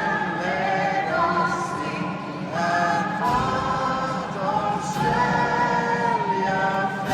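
Choir singing a slow piece in long, held notes that glide between pitches.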